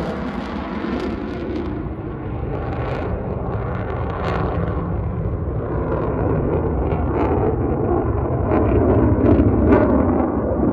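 F-18 Super Hornet jet flying past: a loud, continuous rumbling jet roar with a crackling edge, which eases slightly and then builds again in the second half.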